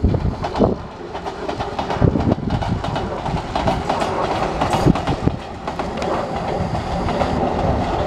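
Enshu Railway electric train, set 2007, running past, its wheels clattering over the rail joints in a quick run of sharp clicks.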